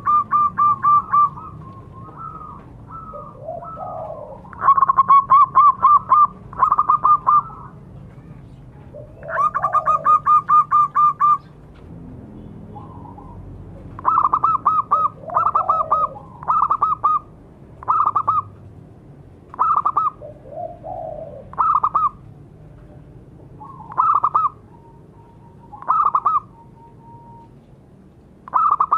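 Zebra doves (perkutut) cooing in bursts of rapid staccato notes. The first few bursts are long trills; from about halfway they are short phrases repeated every second or two, with softer, lower calls in between.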